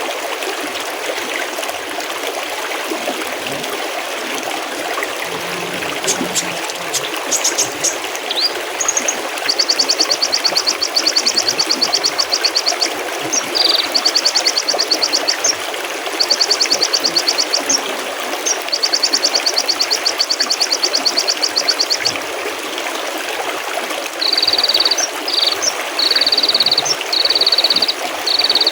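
Mountain stream trickling and babbling steadily. From about six seconds in, a small songbird sings over it in long, very rapid high trills of a few seconds each. Near the end it switches to short repeated bursts.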